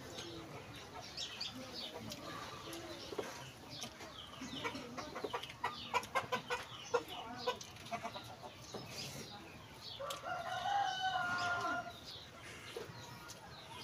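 A rooster crows once about ten seconds in, one long call of about two seconds, with chickens clucking now and then around it. Short wet clicks of chewing and eating by hand run through, thickest in the middle.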